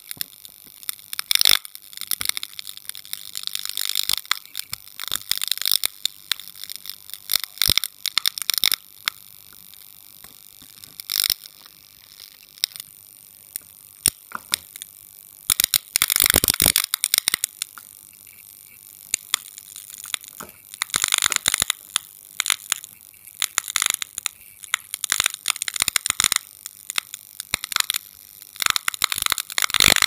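Failing electric light flickering: irregular crackling, sputtering bursts of electrical buzz. They come in dense clusters separated by quieter stretches.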